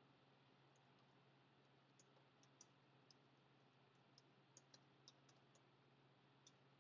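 Faint computer keyboard typing: about a dozen soft, scattered key clicks, over a low steady hum.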